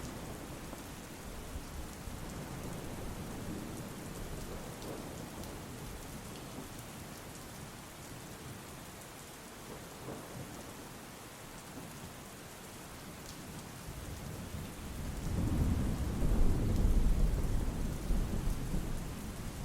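Steady rain falling, with a low rumble of thunder swelling up about fourteen seconds in, loudest for a few seconds, then easing near the end.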